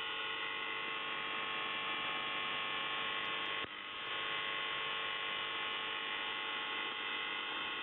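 The UVB-76 'Buzzer' on 4625 kHz, received on a shortwave receiver in upper sideband: a steady, raspy buzz with hiss, dipping briefly about three and a half seconds in. This is the station's channel-marker tone, which runs between its voice messages.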